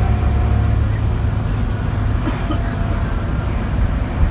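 ADL ALX400-bodied Trident double-decker bus under way, heard inside on the upper deck: a steady, loud low engine and road rumble. A faint thin whine fades out within the first second.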